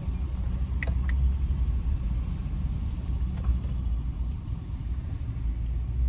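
Steady low rumble of a car driving slowly, its engine and tyre noise heard from inside the cabin. A couple of faint clicks come about a second in.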